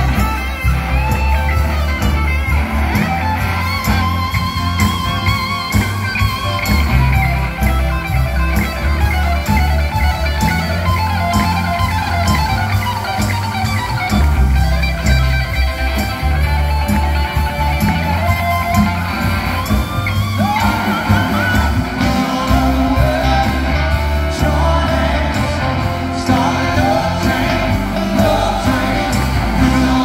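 Live band playing through a PA system, with bass, guitar and singing, picked up from among the audience.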